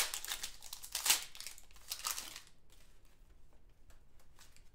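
Sports trading cards being handled and shuffled by hand: a sharp snap at the start, then crinkling rustle and card flicks that die down after about two and a half seconds.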